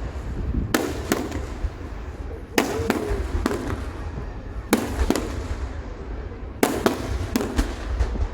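Aerial fireworks shells bursting in a fast, irregular series of sharp bangs, sometimes two or three within a second, over a continuous low rumble.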